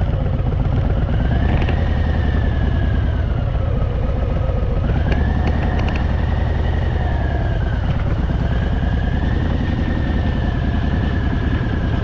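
Harley-Davidson Fat Boy's V-twin engine running at low speed, with a high whistle that slowly rises and falls every few seconds.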